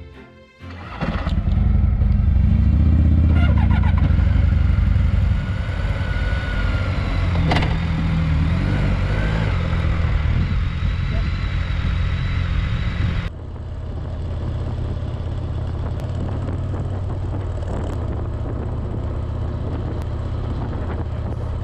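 Motorcycle engine starting about a second in and running loudly with some revving. About 13 seconds in the sound cuts abruptly to a steadier, quieter engine note of a motorcycle under way.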